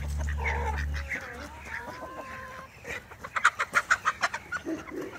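Chickens clucking and squawking while being chased. From about three seconds in, a hen that has been grabbed gives a loud, rapid run of squawks, about six or seven a second.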